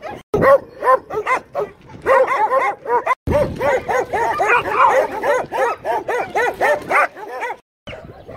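Several dogs barking and yelping in quick succession, short high barks several a second, breaking off suddenly three times.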